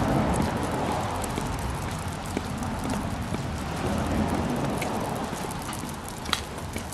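Light rain and walking noise on a wet sidewalk: a steady hiss over a low rumble, with scattered sharp ticks, the sharpest about six seconds in.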